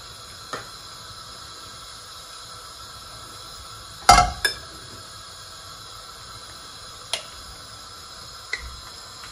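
Kitchen utensils clinking against a pot on the stove as ghee is added for the halwa, with one loud clink that rings briefly about four seconds in and a few lighter clicks, over a steady faint hiss.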